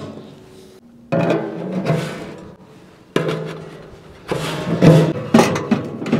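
Stainless-steel stove chimney pipes and fittings clanking together as they are fitted, several sharp knocks, each ringing on and fading for about a second.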